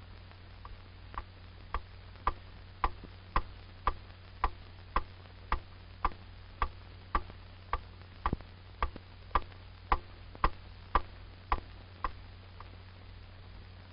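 Steady mechanical ticking, just under two ticks a second, like a clock or metronome. It starts softly, keeps an even beat for about twelve seconds and fades over the last few ticks.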